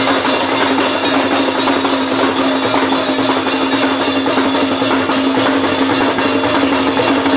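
Singha Baja drum band playing: large barrel drums beaten with sticks in a fast, loud, driving rhythm, over a steady held tone.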